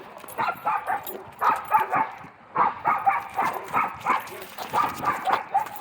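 Dog barking in quick runs of short, sharp barks, several a second, broken by brief pauses.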